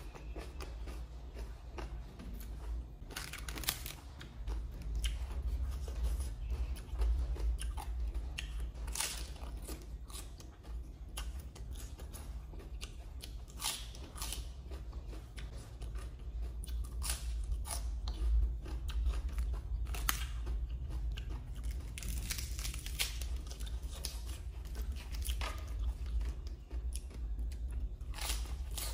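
Close-up wet crunching and chewing of green papaya salad and crisp fresh lettuce leaves, in irregular bites, over a steady low hum.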